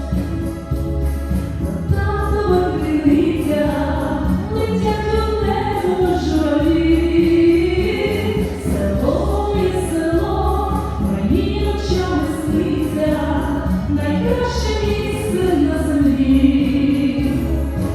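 Song with voices singing a slow melody in choir-like fashion over a backing track with a steady, repeating accompaniment.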